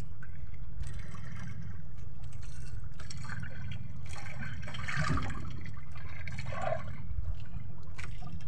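Sea water lapping and sloshing against the hull of a small outrigger boat, over a steady low rumble.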